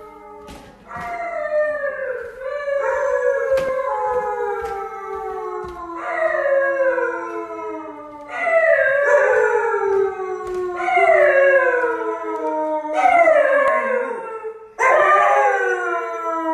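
Husky howling over and over at its owner's homecoming, long calls that slide down in pitch, growing louder about halfway through. Knocks of footsteps on wooden stairs sound under the first few seconds.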